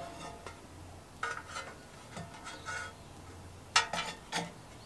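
Light metallic clicks and taps from parts being handled during engine reassembly. About four seconds in comes a sharper knock, the loudest, as a painted metal cover is set against the engine, followed by a couple of quieter knocks.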